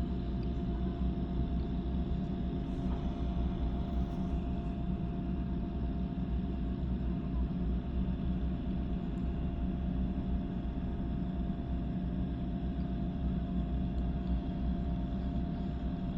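A drilling rig's machinery running steadily: a constant low rumble with a steady mid-pitched hum over it, with no banging.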